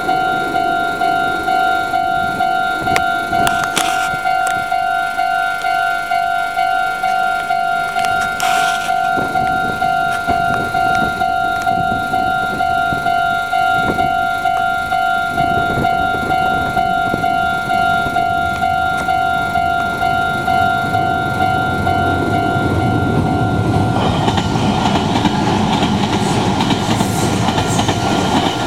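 Japanese level-crossing warning bell on the Meitetsu Nagoya Main Line, ringing as an evenly repeating two-tone electronic ding. Under it a train approaches and passes: its running noise builds from about a third of the way in and is loudest in the last few seconds.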